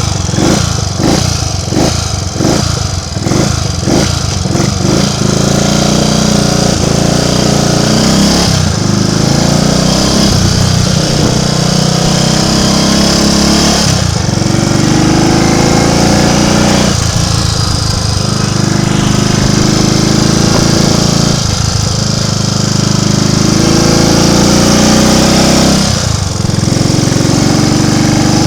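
Triumph Tiger Cub's 199 cc single-cylinder four-stroke engine running while being ridden. For the first few seconds it fires in uneven pulses, the misfire the bike suffers from. Then it runs more evenly, with its note dropping and changing several times as the throttle and revs change.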